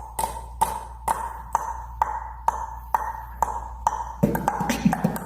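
Beatboxed mouth clicks in a steady rhythm, about two a second, each with a short ringing ping; about four seconds in they turn faster and denser.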